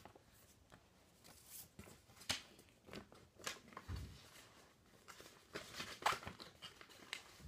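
Scattered rustling and handling noises of a fleece blanket being shifted while someone rummages, with a soft thump about four seconds in.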